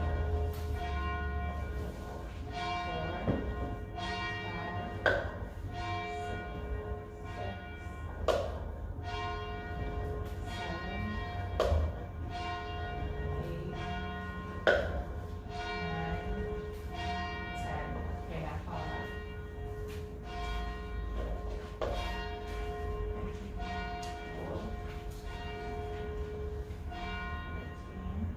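Church tower bell tolling, struck about every one and a half to two seconds, each stroke ringing on under the next.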